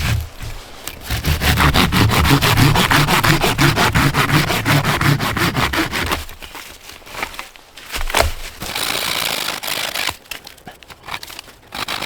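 Hand saw cutting through a log in fast, even back-and-forth strokes for about five seconds, then stopping. A single sharp knock follows, and short bouts of sawing come again near the end.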